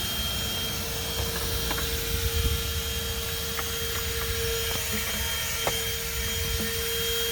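Corded car vacuum cleaner running with a steady whine, with a few sharp plastic clicks as an attachment is worked onto its nozzle.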